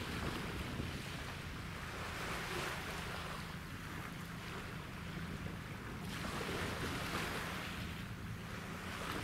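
Wind gusting on the microphone and waves washing, swelling and easing every few seconds, over a low steady drone of ship engines from the ferry and its tugboats.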